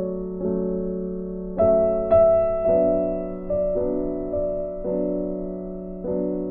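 Soft piano music: slow chords and single notes struck about once a second, each ringing and fading before the next.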